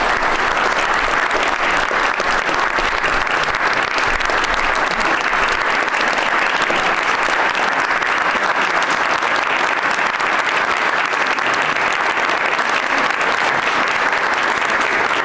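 Sustained applause from an audience, steady and dense throughout.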